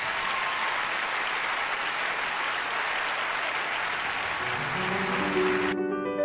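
Concert audience applauding. About four and a half seconds in, piano notes come in, and near the end the applause cuts off abruptly, leaving only the piano.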